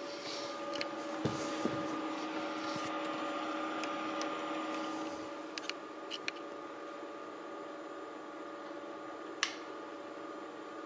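Sony 3LCD projector running, its cooling fan giving a steady hum with a whine of several held tones, louder for the first few seconds. Light clicks and knocks in the first half and one sharp click near the end.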